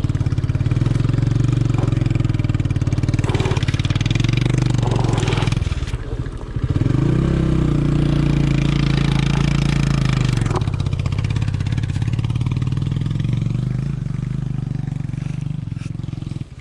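Suzuki Gixxer 150's single-cylinder engine running under way. It eases off briefly about six seconds in, then picks up again.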